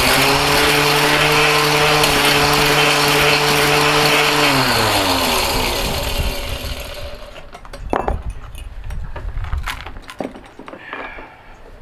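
Mighty Mill ore crusher running loud with a steady hum and rattle, then winding down: its pitch falls about four to five seconds in and the noise dies away by about seven seconds. A few knocks and clatter of handling follow.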